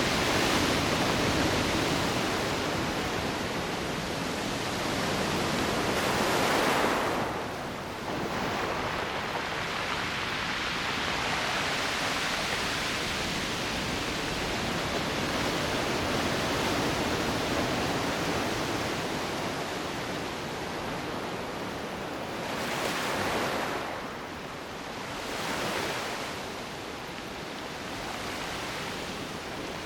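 Ocean surf washing on the shore in a steady rush, with waves swelling louder about seven seconds in and again twice near the end.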